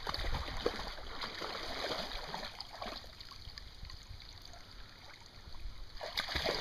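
Flat-coated retriever wading and splashing through shallow lake water, with irregular sloshing as her legs break the surface. The splashing eases off for a couple of seconds midway while she stands, then picks up again near the end as she moves on.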